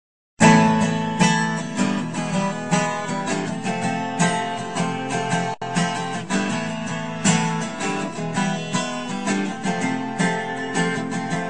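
Strummed acoustic guitar playing the instrumental opening of a song, starting suddenly about half a second in after a brief silence.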